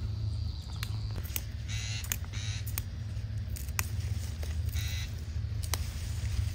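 Leafy vegetable plants rustling in short bursts with scattered sharp snaps as vegetables are picked by hand, over a steady low hum.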